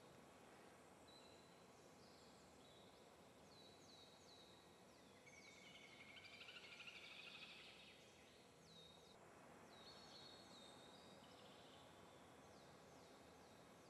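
Near silence with faint, high chirps that fall in pitch, repeated in short runs, and a busier twittering stretch about six seconds in.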